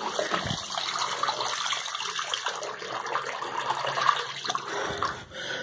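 Water running steadily from a bathroom sink tap into a ceramic washbasin, stopping near the end.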